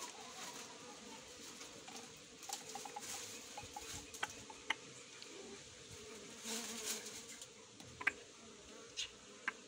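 Faint, steady buzzing of stingless bees at their opened hive box, with several sharp clicks in the second half.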